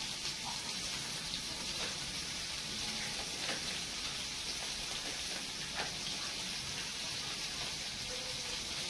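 Steady hiss with a few faint crinkles and clicks as the plastic wrapper is peeled off a processed cheese slice.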